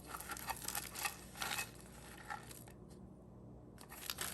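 Snack packages being handled, with light crinkling of plastic wrappers and small clicks and taps. The handling sounds come in a run, stop for about a second, then pick up again near the end.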